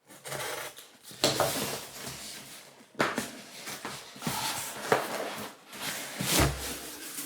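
Parcel packaging being unwrapped and handled by hand: irregular rustling and crinkling with a few sharp knocks.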